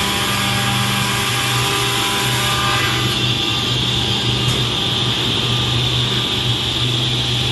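Automatic edge banding machine running: a steady low motor hum with a higher hiss above it, unbroken throughout.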